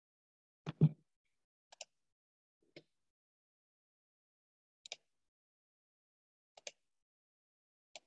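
Dead silence broken by one louder knock about a second in, followed by five brief, sharp clicks, most in quick pairs, spaced one to two seconds apart.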